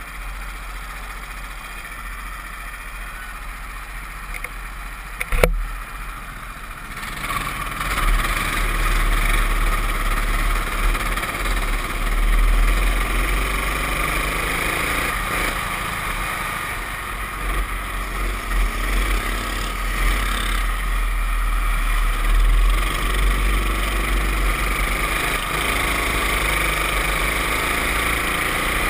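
Racing kart engine heard from a camera mounted on the kart. It runs low and steady for the first few seconds, with one sharp knock about five seconds in. From about seven seconds in it pulls hard, its pitch rising and falling again and again as the throttle comes on and off.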